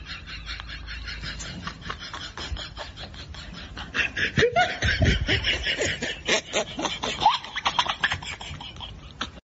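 A small fluffy dog chewing crunchy food from a hand, a dense run of fast crunching clicks that grows louder about four seconds in. A person's snickering laughter joins at that point.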